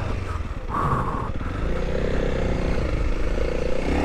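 Honda CRF300L's single-cylinder four-stroke engine running as the dirt bike is ridden on a trail. It dips briefly about half a second in, then holds a steady note.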